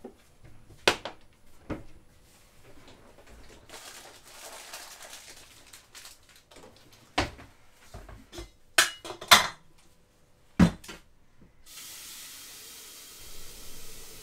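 Kitchen handling: a handful of sharp knocks and clinks of crockery and a cupboard, then a kitchen tap running steadily into a glass vessel for the last couple of seconds.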